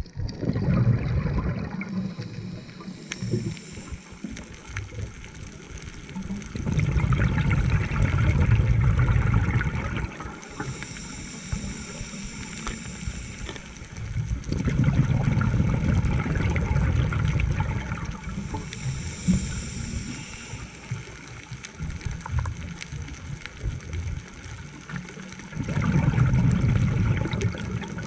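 Scuba diver breathing through a regulator, heard underwater: a loud bubbling burst of exhaled air lasting about three seconds comes roughly every eight seconds, with a quieter hiss of the inhale in between.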